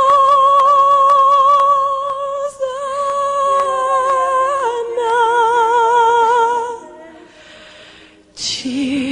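A high solo voice singing a worship song, holding one long note, then moving to a lower note with a strong vibrato about five seconds in, over a light regular tick. The voice stops for about a second and a half near the end, then singing starts again.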